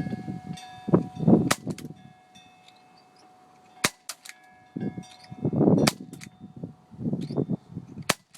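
CO2 airsoft pistol firing single shots, about six sharp cracks spaced irregularly a second or more apart, with bursts of low rumble between them.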